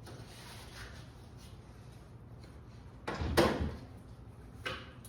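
Scraping and knocking as a motorcycle is pushed and manoeuvred by hand, with a loud clatter about three seconds in and a shorter one near the end.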